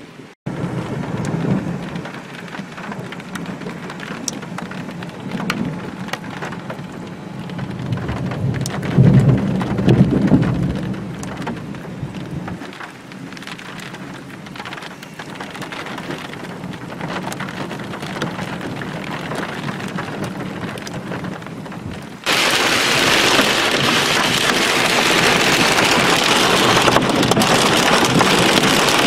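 Thunder rumbling over steady rain, the rumble loudest about 9 to 10 seconds in. About 22 seconds in the sound cuts abruptly to a loud, even roar of heavy rain drumming on a car.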